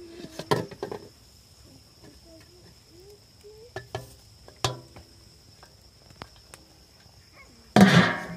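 Metal tray clinking and knocking as tomato slices are scraped off it into a pot of boiling broth over a wood fire, with a brief loud knock near the end. A steady high thin tone runs behind.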